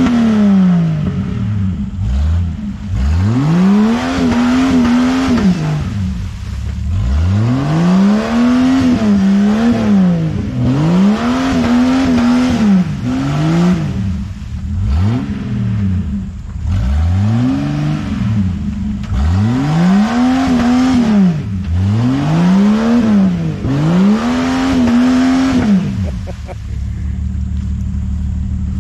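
Jeep Wrangler engine revved hard again and again, about a dozen times, each rev climbing and dropping over a second or two as the stuck Jeep tries to rock itself out of deep mud. A steady engine idle runs underneath, and the revving stops near the end.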